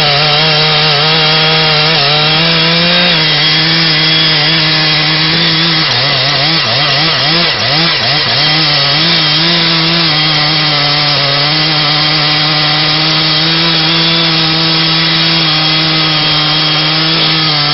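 Chainsaw running at high revs and cutting wood, its engine note steady but wavering and dipping under load about six to eight seconds in.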